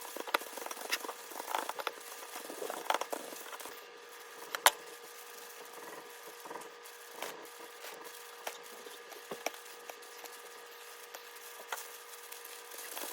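Scattered light taps and clicks of food preparation on a kitchen counter, the sharpest click about four and a half seconds in, over a faint steady hum.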